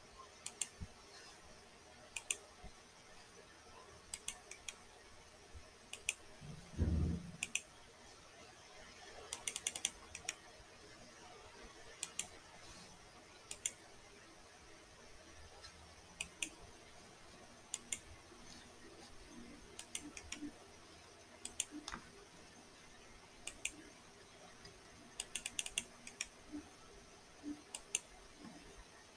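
Faint computer mouse and keyboard clicks, scattered and often in quick pairs or clusters, as text is copied and pasted. There is a muffled low thump about seven seconds in.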